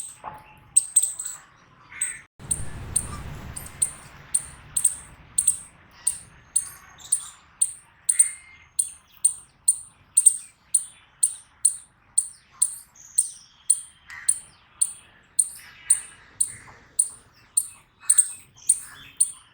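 Eastern chipmunk giving its repeated high-pitched chip call, about two chips a second, kept up steadily. About two seconds in, a low rumbling noise runs for a few seconds beneath the chips, and fainter lower calls sound in the background.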